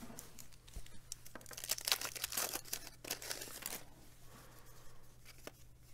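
Wax paper wrapper of a 1989 Bowman baseball card pack being torn open and crinkled by hand, a busy run of crackling in the first half that thins to a few small crackles near the end.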